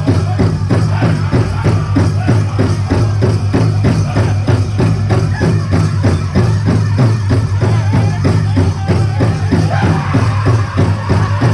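Powwow big drum struck in a fast, even beat for a chicken dance song, with dancers' bells jingling. Singers' voices rise over the drum about ten seconds in.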